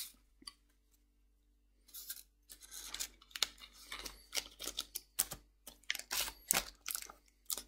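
Foil booster-pack wrappers from Magic: The Gathering crinkling and crackling as they are handled and gathered up. The sound is a run of short, sharp crackles that begins about two seconds in and follows a near-silent start.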